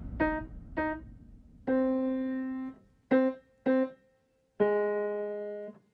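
Piano playing a slow, simple melody of single notes: two short notes and then a longer held one, with the same pattern repeated, each note separated by a brief silence.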